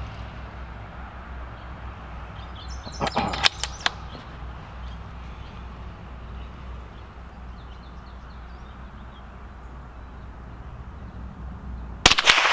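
Bergara B-14 bolt-action .22 LR rifle: a quick run of metallic clicks as the bolt is worked, about three seconds in, then a single sharp shot near the end that rings out.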